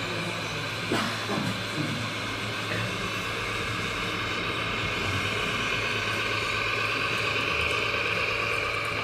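Steady high-pitched whine of a small electric motor driving an RC model machine, running without a break, with a short click about a second in.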